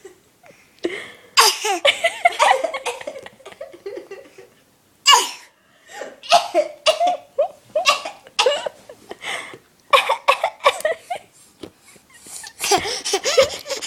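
A baby giving short coughs put on for attention, and a woman laughing along in between.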